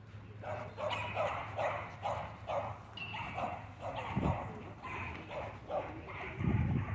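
A dog barking over and over, about two or three barks a second, with a low thump about four seconds in and another near the end.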